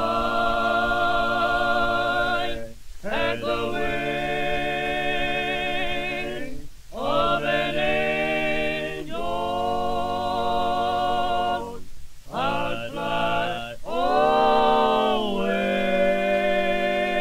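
Voices singing a cappella, choir-like, in long held notes with vibrato, phrases of a few seconds broken by short pauses.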